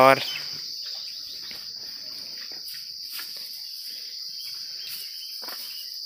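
Steady, high-pitched drone of insects, continuous and unchanging, with a few faint scuffs beneath it.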